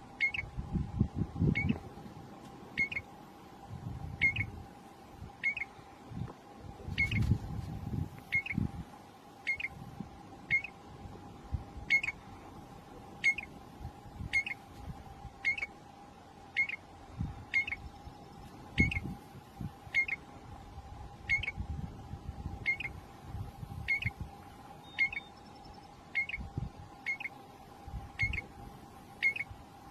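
A bird repeating a short, sharp call note about once a second, steady and regular. Under it run a constant hum and irregular low rumbles.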